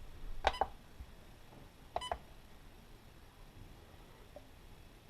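SkyRC Quattro Q200 battery charger beeping as its buttons are pressed to set up a charge channel: two short beeps in quick succession about half a second in, and another short beep about two seconds in.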